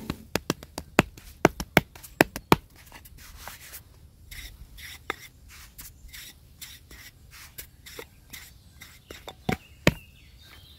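Hands slapping and pressing bread dough on a floured wooden board, a quick run of sharp slaps, then the softer repeated strokes of a thin wooden rolling pin rolling the dough out. Two loud knocks near the end.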